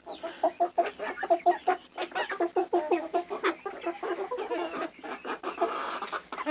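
A flock of chickens clucking, many short overlapping clucks in quick succession, with a longer, higher call near the end.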